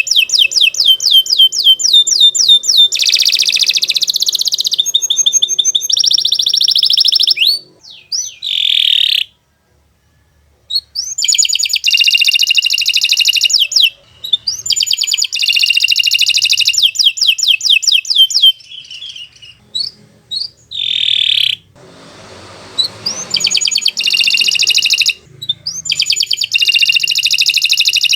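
Domestic canary singing long, very fast rolling trills in phrases several seconds long, broken by short pauses, one of them nearly silent about a third of the way in.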